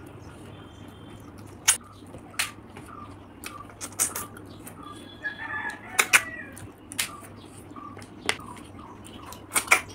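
Cooked river snails being sucked from their shells: about ten short, sharp slurps spread irregularly, the loudest about six seconds in and a quick pair near the end.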